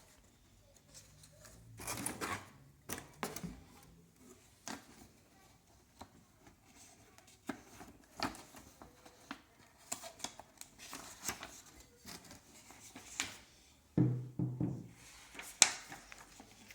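Packaging being handled by hand: scattered rustles, scrapes and sharp clicks, with a dull thump near the end followed by a sharp click.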